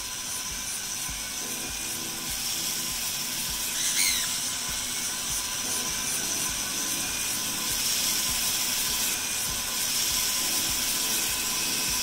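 Flexible-shaft rotary grinding tool with a stone bit running at a steady high-pitched whine, grinding down a cockatiel's beak in a beak trim.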